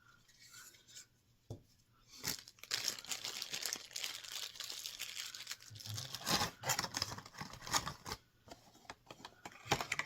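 Ornament packaging being handled, crinkling and tearing. It starts about two seconds in and goes on as a dense crackle with many sharp snaps.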